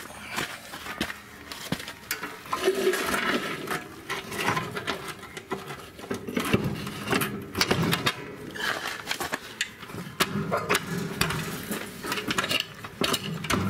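Steel snowplow mounting frame being worked into the plow hitch under a Deutz-Allis 1918 Ultima garden tractor: repeated metal clanks and knocks with scraping, thickest from a few seconds in.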